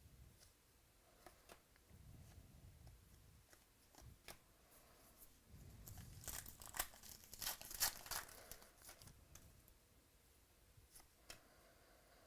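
Faint crinkling and tearing of trading-card pack wrappers and the handling of cards, with a burst of sharp crackles and clicks about six to eight seconds in.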